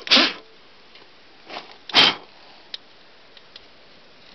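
A hot, just-parked ATV ticking and crackling as it cools: a few sharp cracks, the loudest at the start and about two seconds in, with faint ticks between. The rider thinks it may be the gas boiling.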